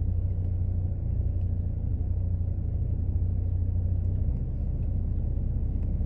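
A steady low rumble with no distinct events.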